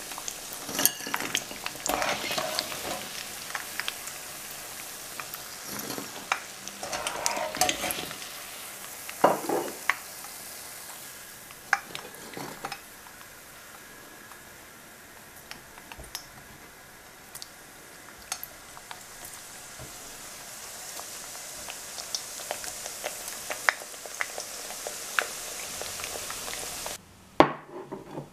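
Hot oil sizzling steadily as doughnuts fry, with clinks and scrapes of a metal wire skimmer against the pan as they are turned and lifted out. The sizzle cuts off abruptly about a second before the end.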